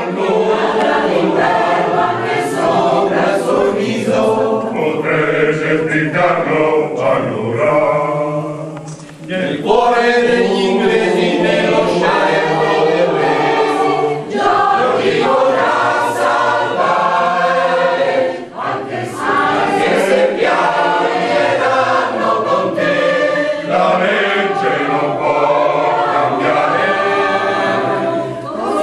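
Mixed choir of men's and women's voices singing, with brief breaks between phrases about nine and eighteen seconds in.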